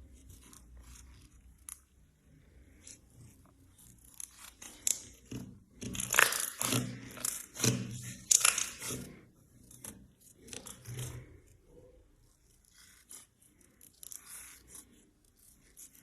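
A series of short, crisp scraping and crunching strokes, densest and loudest from about six to nine seconds in.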